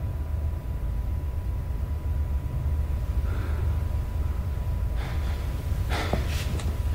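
A low rumbling drone with a faint steady ringing tone over it, then sharp gasping breaths about five and six seconds in.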